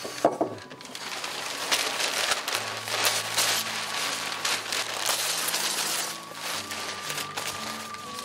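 Sheets of painting paper being handled and crumpled, an irregular rustling crackle, as a painting is thrown out. Soft sustained background music plays underneath.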